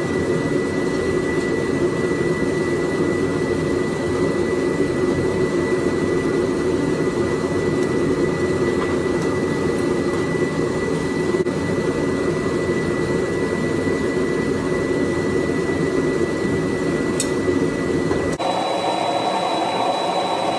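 A forge running with a steady roar and a thin, high, steady whine. Near the end the sound changes abruptly, and the whine moves higher.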